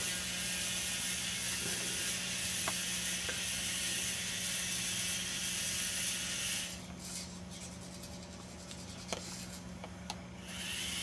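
Small DC gear motors of a homemade tracked rover robot whirring steadily as it drives over carpet. The noise cuts out about two-thirds in as the robot stops short of a wall, which its sonar has detected. A few faint clicks follow, and the motors start again near the end.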